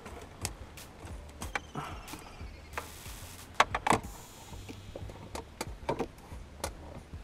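Scattered knocks and clicks of fishing gear being handled in a small boat, the loudest cluster a little past halfway, over a low steady hum.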